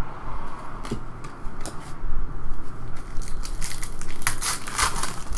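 Trading-card pack wrapper being torn open and crinkled: a few sharp crackles, then a denser run of crinkling in the last two seconds.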